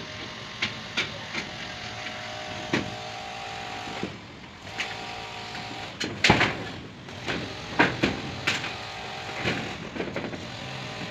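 Cordless drill driving self-drilling tek screws into corrugated metal roofing: a steady motor whine that stops briefly about four seconds in and comes back in stretches. Sharp metallic clacks and knocks on the sheet run over it, the loudest about six seconds in.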